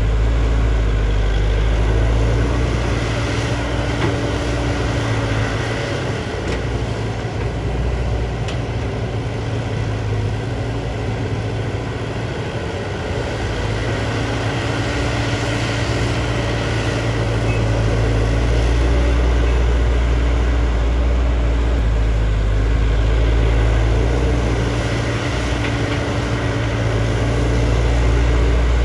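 JCB JS205 tracked excavator's diesel engine running steadily while digging, its sound easing a little mid-way and rising again later.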